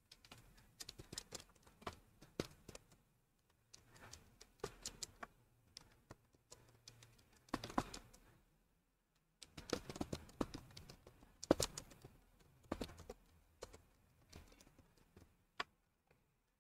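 Faint computer keyboard typing: irregular runs of quick key clicks with a few short pauses.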